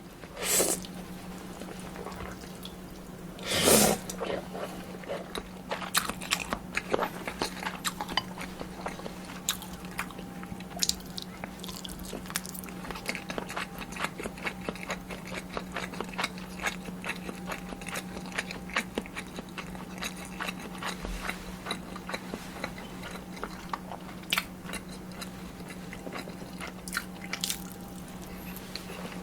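Close-miked eating of kimchi ramen and dumplings: two loud noodle slurps in the first few seconds, then steady chewing with many small wet clicks.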